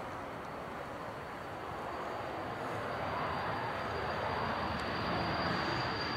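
Business jet's rear-mounted turbofan engines running as it passes along the runway: a rushing roar with a steady high whine, growing louder and loudest near the end.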